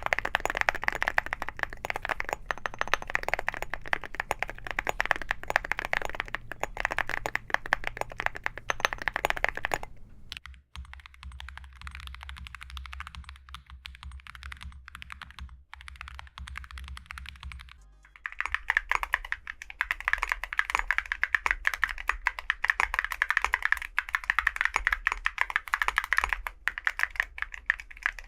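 Fast typing on a mechanical keyboard fitted with full metal keycaps, a dense run of clacks. About ten seconds in the typing turns fainter and thinner over a low steady hum; near eighteen seconds loud, dense typing starts again.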